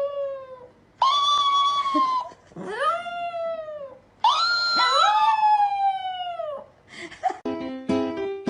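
A pet animal giving long, drawn-out howling calls: one trailing off at the start, then three more, each rising and then slowly falling in pitch, the last and longest lasting over two seconds. Plucked-string music comes in about a second before the end.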